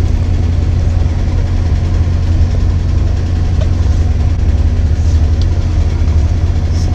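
A steady low hum, unchanging in pitch and level.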